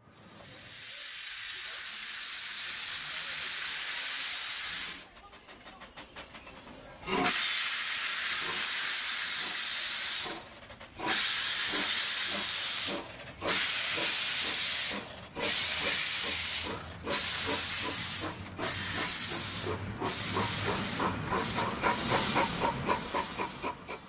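Adler replica steam locomotive hissing steam from its open cylinder drain cocks. There is one long blast, then, after a quieter gap, shorter and quicker bursts as the locomotive gets under way.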